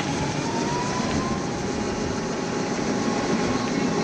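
Open-sided cart running steadily along a paved road: wind and tyre noise with a faint motor whine.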